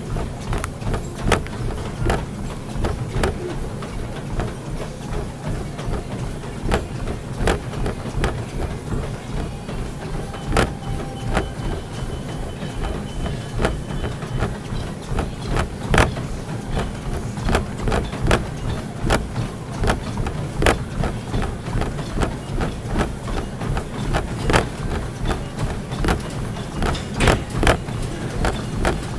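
Exercise machine running with a steady low rumble, overlaid by regular knocks and thumps roughly one or two a second in the rhythm of the workout's strides.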